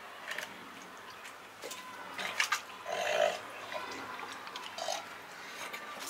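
Cormorant swallowing a large fish whole: a few short gulping and knocking sounds, spaced a second or two apart.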